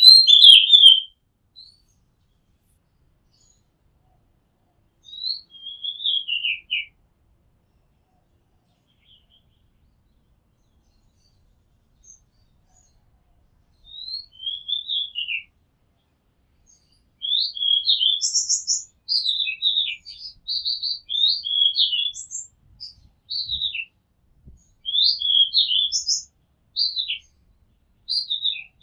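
Oriental magpie-robin singing: short, varied whistled phrases that slide up and down, separated by pauses. The first phrase is the loudest, and in the second half the phrases come in quick succession.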